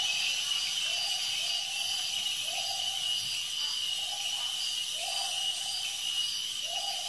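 Night-time rainforest chorus: a steady high insect drone, partly pulsing, with a lower rising call repeating roughly every second.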